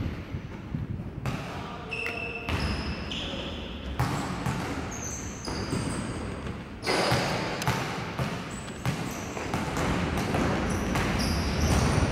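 Basketball game on a hardwood gym court: the ball bouncing and sneakers squeaking in many short, high chirps.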